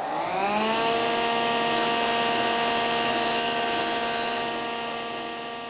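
Electric motor of a woodworking machine spinning up, its whine rising in pitch for about a second, then running at a steady speed.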